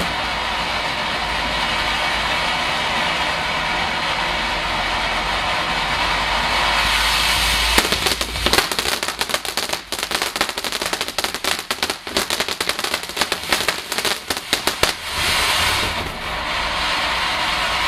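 Crackling fountain firework spraying with a steady hiss. About eight seconds in it breaks into rapid crackling, many sharp pops for around seven seconds, then settles back to a hiss.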